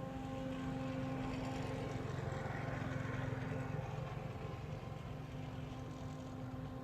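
Vietnamese train-whistle kite flute (sáo còi tàu) sounding a steady low tone with overtones in the wind. The tone drops out for about a second past the middle and comes back, while a rushing noise swells and fades.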